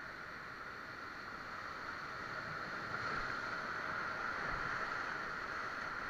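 Whitewater rapids rushing around an inflatable raft: a steady hiss of churning water that gets a little louder about halfway through.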